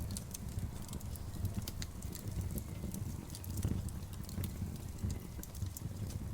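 Campfire burning: wood crackling and popping in many quick, irregular snaps over a steady low rumble.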